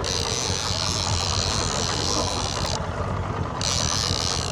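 Boat engine running steadily, with a constant low hum under a hiss that drops out for under a second about three seconds in.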